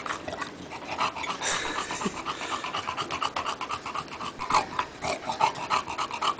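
English bulldog panting steadily with his mouth open, a quick, even run of breaths.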